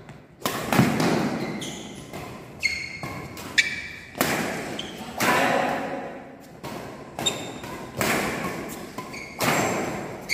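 Badminton rackets striking a shuttlecock in a fast rally, about one hit a second at an uneven pace, each hit echoing in a large hall.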